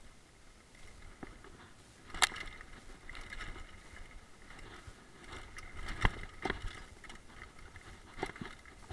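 Mountain bike riding down a loose dirt trail: a rough rolling noise with the bike clattering over bumps, and sharp knocks about two seconds in and again about six seconds in.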